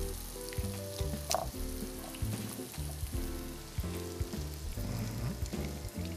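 Custard-dipped French toast sizzling on an electric griddle, a steady frying hiss with a few small clicks, under soft background music with sustained low notes.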